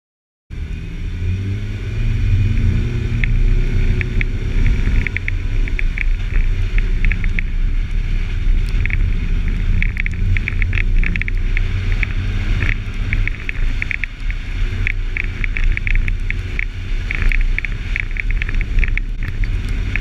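Jeep Wrangler driving on a snowy road: a steady low rumble from the moving vehicle, with irregular runs of quick light clicks over it.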